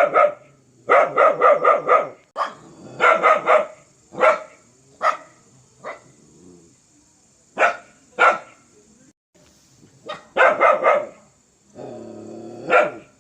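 A dog barking fiercely, in quick runs of four or five barks with single barks between them. Near the end a longer low growl leads into another bark.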